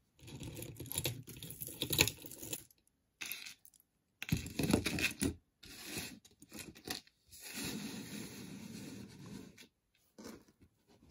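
Jewelry pieces being handled and slid on a hard work board: scraping and rustling in several stretches, with a few sharp knocks and clinks. The board itself is loud to handle things on.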